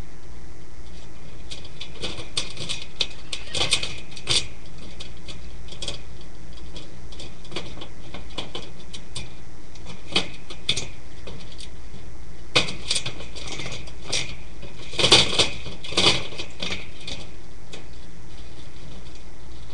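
Light clicking and rustling from a nest of newborn rat pups in shredded paper bedding, coming in several short clusters over a steady hiss, loudest about three-quarters of the way through.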